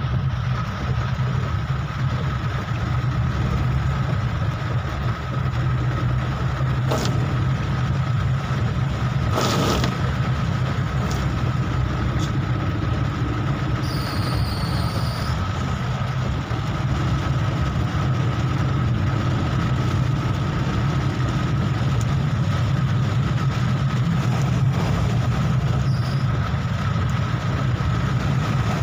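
Inside a car's cabin driving in heavy rain: a steady low engine and road rumble under the hiss of rain and wet tyres. There are a couple of sharp clicks and a brief high tone about halfway through.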